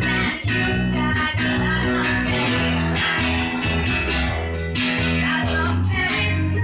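A band playing a song live: guitars over a steady, moving bass line, with sharp strokes reaching up high.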